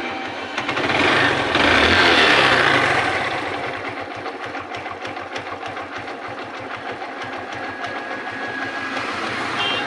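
Hero Glamour motorcycle's single-cylinder four-stroke engine revved up once about a second in, then settling back to an even idle. It has a freshly fitted timing chain and tensioner, and is running smoothly without chain rattle.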